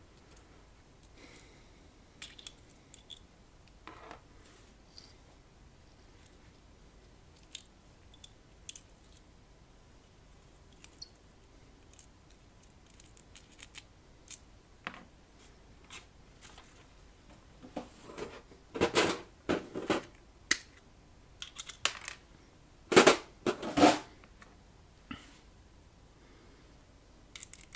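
Metal parts of a screw-type chassis punch being unscrewed and handled on a stainless steel chassis: scattered small clicks and scrapes, then a cluster of louder metallic clinks and knocks from about 18 to 24 seconds in.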